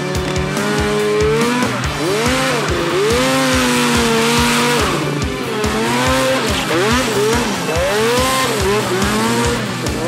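Scooter-engined stunt trike revving up and down in a tyre-smoking burnout, its rear tyres squealing. Rock music with a steady drum beat plays over it.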